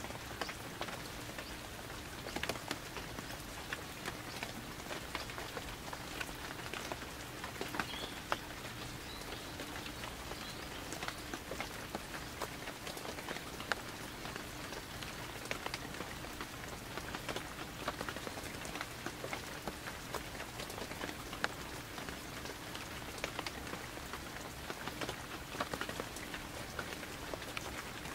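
Light rain falling steadily, with many separate drops ticking close by at irregular intervals.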